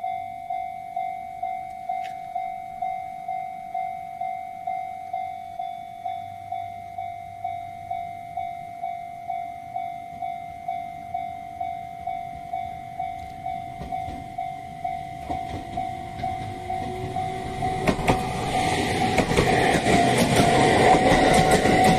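Japanese level-crossing warning bell ringing, an electronic ding about twice a second. From about 15 s an Aoimori Railway 701-series electric train comes past, accelerating away from the station, with a rising motor whine. Its running noise, with sharp clacks of wheels over rail joints, grows loudest near the end.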